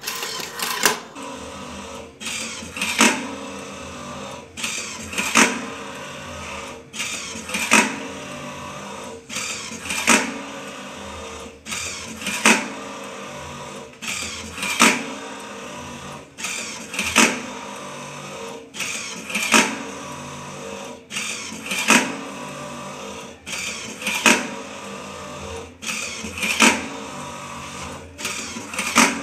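Electric twin-spindle cotton wick making machine running, a steady motor hum broken by a loud clack about every two and a half seconds, with lighter clicks between. Each clack keeps pace with the machine's counter, marking one completed wick-making cycle.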